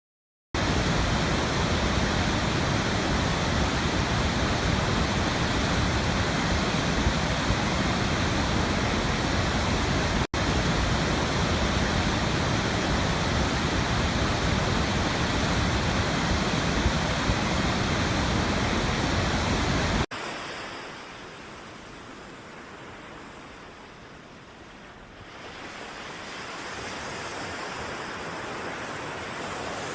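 A loud, very even rushing hiss with no rise or fall, dropping out for an instant about ten seconds in. About twenty seconds in it cuts to quieter ocean surf that slowly swells and eases back.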